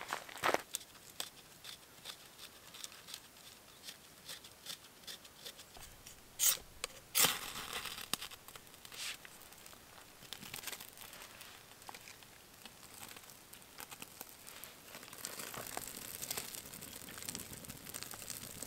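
Dry, papery tinder being torn and crumpled by hand while a campfire is laid, with small crackles throughout and two louder rips about six and seven seconds in. A faint hiss builds in the last few seconds.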